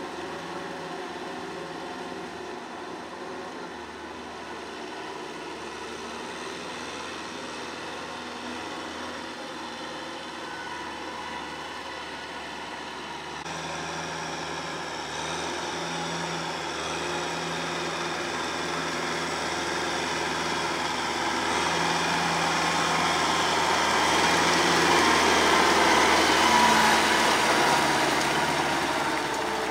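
Kubota M6040SU tractor's diesel engine running steadily while it drives a rotary tiller through paddy mud. It grows louder through the second half as the tractor comes closer, then eases off near the end.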